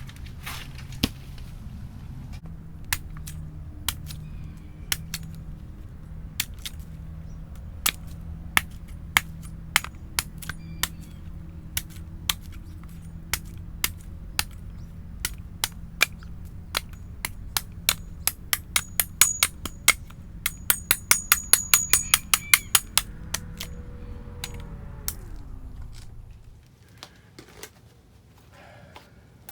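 A run of sharp knocks, scattered at first and then coming quickly for a few seconds past the middle, over a steady low hum that stops shortly before the end.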